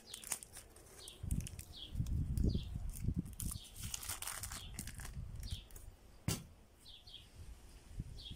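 Clear plastic wrap crinkling and tearing as it is peeled off a round of suluguni cheese, in short irregular crackles. A small bird gives short falling chirps about once a second behind it.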